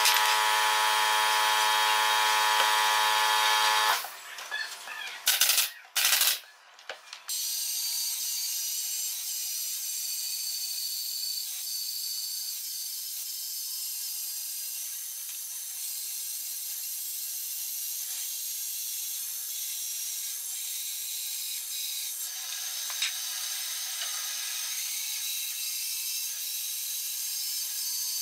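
A band saw's running blade cutting steadily through a thick slab of wood, a hissing saw noise that begins about seven seconds in. Before it there is a loud steady hum for about four seconds, then a few sharp cracks.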